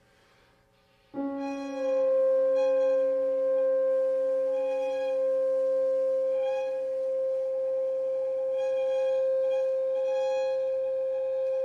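Contemporary chamber music for violin, bass clarinet and piano. After a second of near silence, a long pure-sounding tone enters suddenly and holds steady at an even level. A lower tone beneath it fades out about halfway through, and soft shimmering pulses come and go above.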